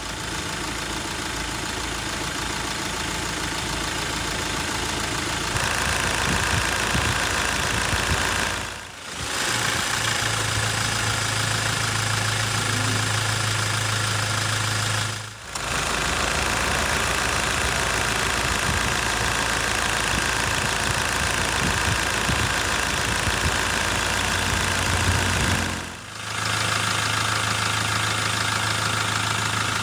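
Mahindra Scorpio's mHawk diesel engine idling steadily under an open bonnet, in several short recordings joined by brief fades: its idle before and after an injector-cleaning diesel purge. The owner holds that after the purge the rattling 'kadkad' clatter is gone from the idle.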